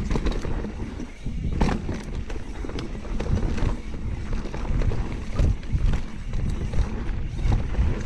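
Mountain bike riding down a dirt singletrack: tyres rolling over the trail with rattle and sharp clacks from the bike over bumps now and then, under steady wind rumble on the microphone.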